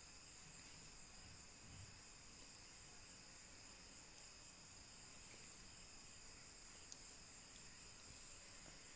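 Near silence: a faint, steady, high-pitched background tone with a single light click about seven seconds in.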